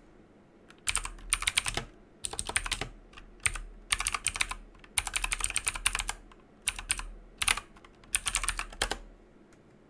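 Typing on a computer keyboard: quick runs of keystrokes with short pauses between them, stopping about a second before the end.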